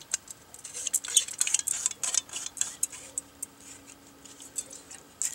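Light metallic clicks and taps as an aluminum canteen is handled against a metal lid and its screw cap is twisted back on. A quick run of ticks in the first couple of seconds gives way to sparser ones, with one sharper click near the end.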